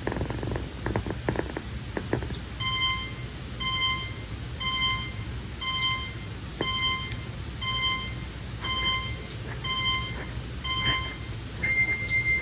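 An electronic beeper sounding a short high beep about once a second, then a longer beep near the end, over a kitten's continuous low purring. A few faint rustles come in the first seconds.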